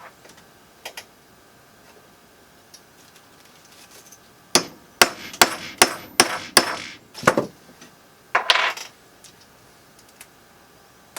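Boscoyo Pixel Pliers pressing pixel nodes into a plastic mounting strip: a quick run of about eight sharp snapping clicks around the middle, then a short, rougher handling noise.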